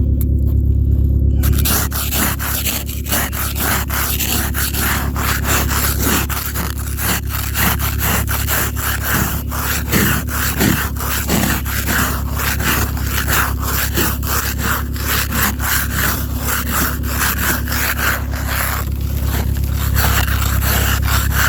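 Ice scraper rasping across frozen ice on a car's glass in rapid repeated strokes, starting about two seconds in, over a steady low hum.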